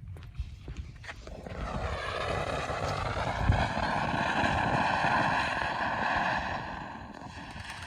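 Firework fountain spraying after it catches, about a second in: a steady rushing hiss carrying a whistling tone that rises at first and then holds, with no crackle or bangs, easing off near the end.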